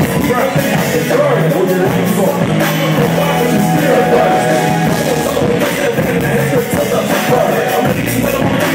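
Loud music through a PA during a sound check: a band or backing track with a steady beat, with some singing over it.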